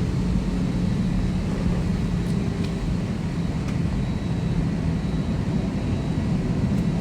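Steady drone of an airliner's passenger cabin: engine and airflow noise with a low hum, even throughout, with a few faint ticks.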